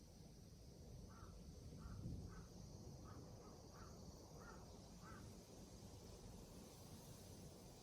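A bird calling faintly: a quick run of about eight short calls over about four seconds, over near-silent room tone.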